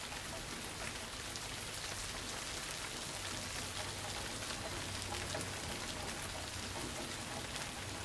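Steady rain falling on the leaves of dense trees, a continuous hiss dotted with many small drop hits.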